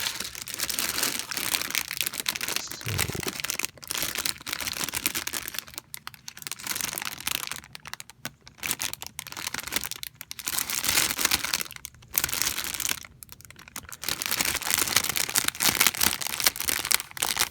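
Plastic bags of model-kit parts crinkling and rustling as they are handled, in bursts with short pauses between them.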